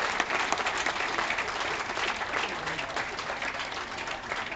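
Audience applauding, dense clapping that slowly dies down.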